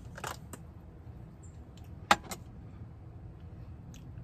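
Cookware being handled: a few light clicks and knocks, then one sharp clack about two seconds in, with a smaller one just after, as a frying pan is set down on a portable induction cooktop.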